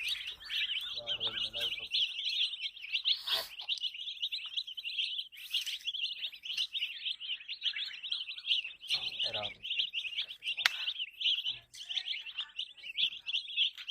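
A brood of baby chicken chicks peeping without a break, many overlapping high chirps in a dense, continuous stream.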